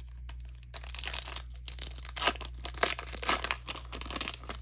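Hockey cards and pack being handled: quick, dense rustling and crinkling that picks up about a second in.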